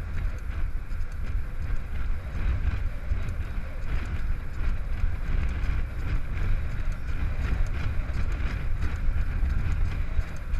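Wind buffeting the microphone of a rider-mounted camera on a mountain bike rolling along asphalt: a loud, steady low rumble with a weaker hiss above it.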